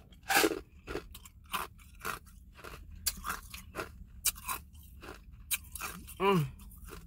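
Ice being chewed: a run of sharp, irregular crunches, the loudest just after the start, with a short hummed voice sound near the end.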